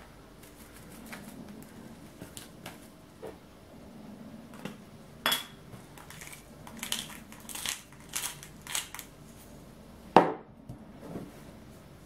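Hands handling and seasoning pieces of raw pork on a cutting board: scattered soft rustles, taps and clicks, with a sharper click about five seconds in and a louder knock about ten seconds in.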